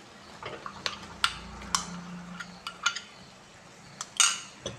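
A spoon clinking and scraping against a glass bowl and the rim of a metal kadai as a thick ground paste is scooped into the pan: a few sharp clicks spread over the seconds, with a brief scrape about four seconds in.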